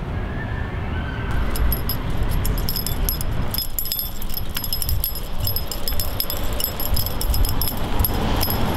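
Metal tags on a walking dog's harness jingling in quick, irregular clinks, over a steady low rumble.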